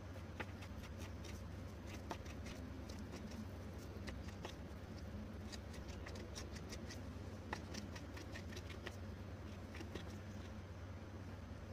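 Chef's knife chopping through raw liver and tapping on a wooden cutting board: irregular sharp taps, some in quick runs, over a steady low hum.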